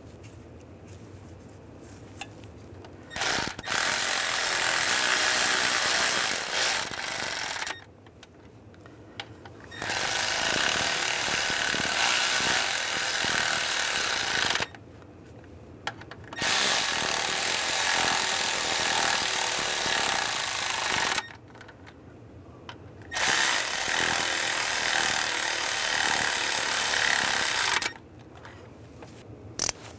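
Handheld power tool running down the fuel injector rail bolts, four runs of about four and a half seconds each with short pauses between.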